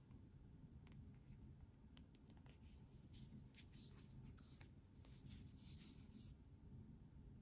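Faint rubbing and light ticks of fingers handling a leather watch strap and a steel watch case, clustered in the middle, over a low steady background hiss.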